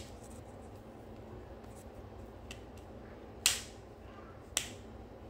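Handling noise of paracord being worked through a hard plastic hub connector: a faint background with three short, sharp sounds, the loudest about three and a half seconds in.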